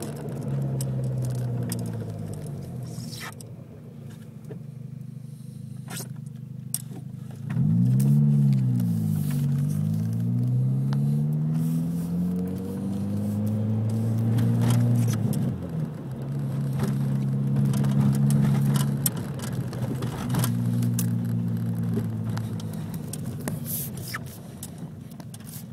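2003 VW GTI's 1.8-litre turbocharged four-cylinder engine running, its revs dropping and climbing again a few times, with scattered sharp clicks.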